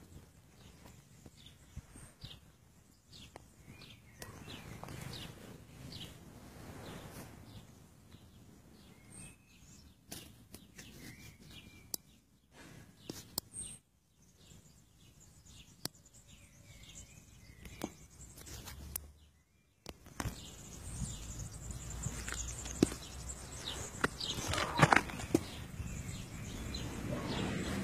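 Outdoor ambience with a few faint bird chirps, then louder rustling and knocks from the handheld camera as it is carried over grass in the last third.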